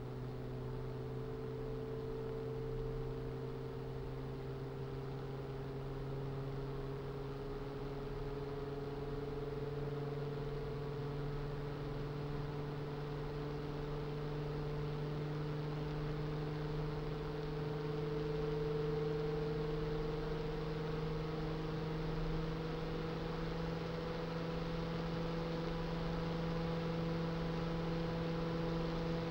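Noctua NF-F12 120 mm PC fan running: a steady airy whoosh with a layered hum whose pitch creeps slowly upward as the fan speeds up through its rpm range.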